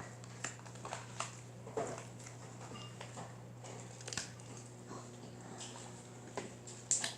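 Fluffy slime (glue, borax and shaving cream) being kneaded and squeezed by hand, giving irregular wet squishes and small squeaks.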